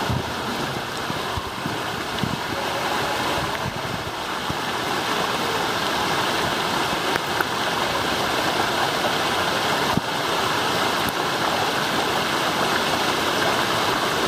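Water rushing down a waterslide flume: a steady hiss of flowing water that grows a little louder about five seconds in.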